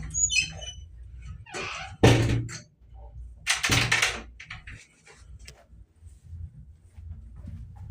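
A few knocks and thuds, the loudest and sharpest about two seconds in and another about three and a half seconds in, over a low steady hum.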